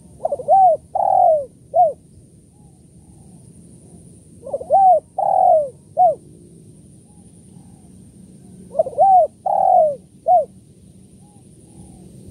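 Spotted dove cooing: three call phrases about four seconds apart, each a quick run of three or four arched coos with a longer note before a short final one.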